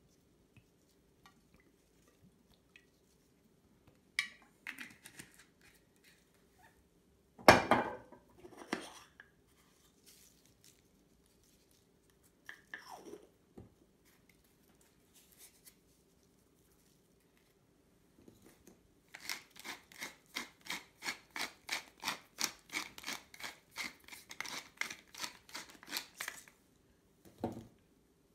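Kitchen handling knocks, one loud, then a wooden pepper mill being ground: a quick even run of crisp crunching strokes, about three or four a second for some seven seconds, ending with a knock as the mill is set down.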